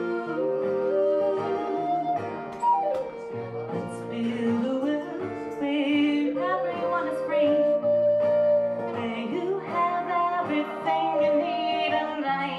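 Live acoustic music: a wooden flute plays a melody of long held and sliding notes over a plucked guitar.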